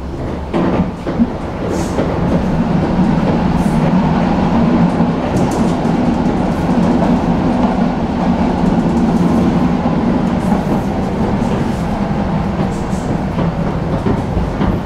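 Tram heard from inside the car, pulling away from a stop and running on: the hum and rumble of motor and wheels grows over the first few seconds and then runs steadily, with a few clicks of wheels over rail joints.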